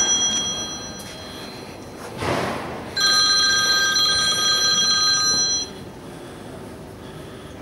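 A show-jumping judges' electric bell ringing with a steady tone: a ring that stops just after the start and a second one of about two and a half seconds, beginning about three seconds in. A brief rush of noise comes just before the second ring.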